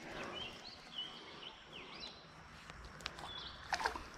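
Small birds chirping in short notes that glide up and down, over quiet outdoor ambience. Near the end comes a brief splash as something drops into the water.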